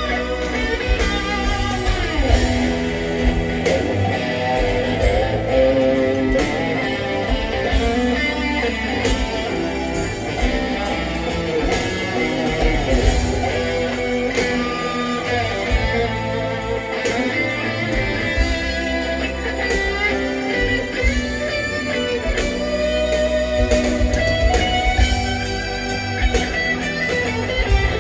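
Live rock band playing: an electric guitar lead on a black Fender Stratocaster, with long sustained notes that bend in pitch, over steady drums and a heavy low bass.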